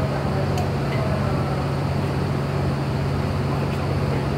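EF64 electric locomotive humming steadily at the platform, with a constant low drone from its running equipment.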